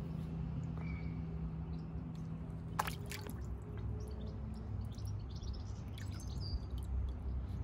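A puppy wading in a shallow plastic paddling pool: light sloshing and dripping water, with a short burst of splashing about three seconds in. A bird chirps faintly a couple of times, over a steady low hum that stops about three seconds in.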